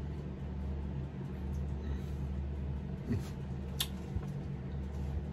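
Room tone: a steady low hum, with a couple of faint clicks about three and four seconds in.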